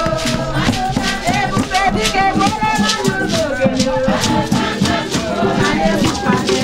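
Upbeat music with a shaker keeping a steady, even beat under a melody line.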